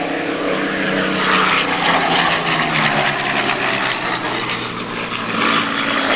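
Supermarine Spitfire's Rolls-Royce Merlin V12 piston engine droning steadily as the fighter flies a display pass, with a broad rushing swell in the middle of the pass.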